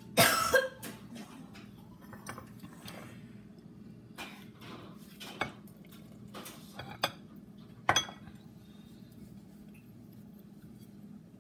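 Hand mixing flour and oil in a glass mixing bowl, with a few sharp clinks and knocks against the glass. The loudest come near the start and about eight seconds in.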